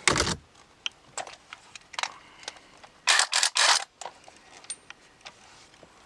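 Tools and steering wheel parts being handled: a sharp clack at the start, scattered clicks and knocks, and a few short, loud rasping bursts about three seconds in.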